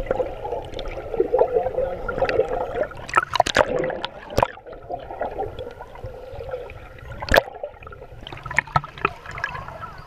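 Shallow seawater gurgling and sloshing, heard muffled from just below the surface, with several sharp knocks scattered through it.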